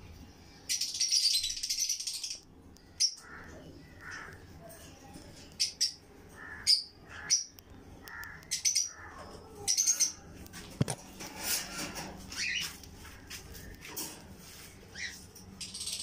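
Caged Alexandrine parakeet calling: a long harsh screech about a second in, then a string of short sharp squawks and chirps with gaps between them.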